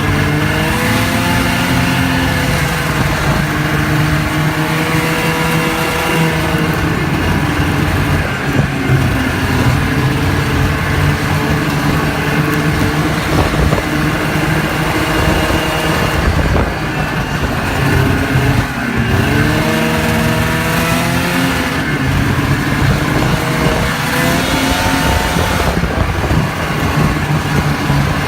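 Snowmobile engine running under way, its pitch rising and falling several times with the throttle.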